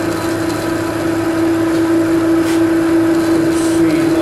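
Metal lathe running at slow spindle speed, about 180 rpm, with a steady hum and tone, while an angled turning tool is fed against the edge of a metal gear blank to remove the burr. A light click comes about two and a half seconds in.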